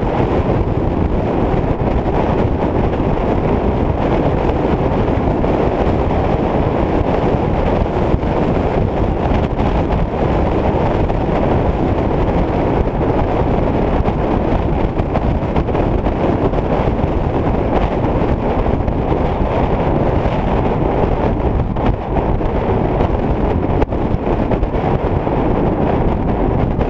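Wind buffeting a moving GoPro camera's microphone: a steady, loud rumbling rush.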